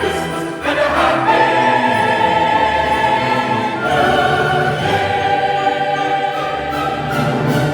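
Choral music: a choir singing long, held notes over instrumental accompaniment.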